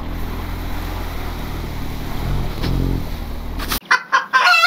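BMW R 1250 GS Adventure's boxer-twin engine running as the bike wades through a deep, muddy puddle, the revs rising briefly about two to three seconds in. Near the end the engine sound cuts out abruptly and gives way to loud, choppy warbling bursts.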